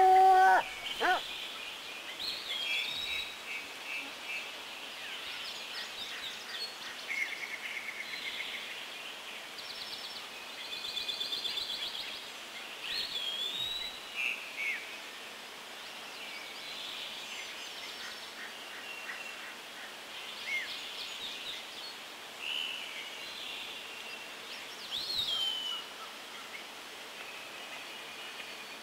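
A dog's howl breaking off about a second in, then several songbirds chirping, trilling and giving repeated down-swooping calls over a steady faint outdoor hiss.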